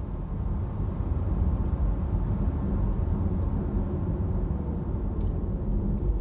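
Steady low rumble of tyre and wind noise inside the cabin of a 2022 Cupra Born electric car travelling at speed and easing off just after a full-throttle acceleration run.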